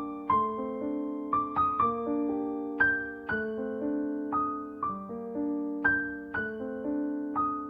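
Background piano music: gentle notes struck one after another in a steady pattern, each ringing on.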